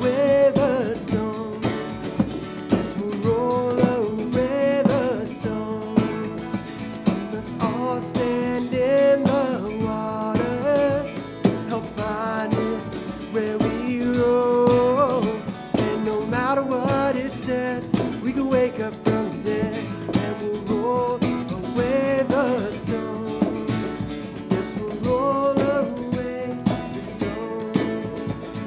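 Small acoustic band playing a country-rock song: several acoustic guitars strumming chords and a cajon keeping the beat, with a melody line bending over the top.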